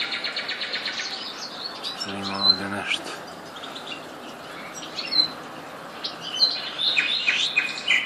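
Small aviary songbirds chirping and twittering. A fast, rapid-fire trill of high notes in the first second gives way to scattered short chirps and calls. A brief low hum sounds about two seconds in.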